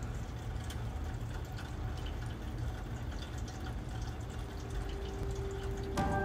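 Sparse soft ticks over a steady low rumble. A low held note fades in about four seconds in, and music with several sustained notes starts just before the end.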